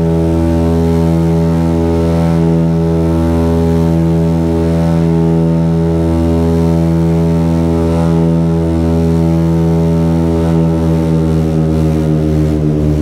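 Twin piston engines and propellers of a Britten-Norman BN-2B Islander droning steadily, heard from inside the cabin. The engine note dips slightly in pitch near the end.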